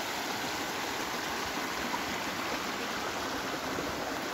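Shallow mountain stream flowing over rocks and small cascades, a steady even rush of water.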